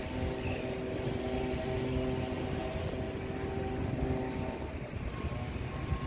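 Bagpipes sounding long held notes over their drones, with a low rumble of wind on the microphone; the notes stop about four and a half seconds in and a single higher note sounds near the end.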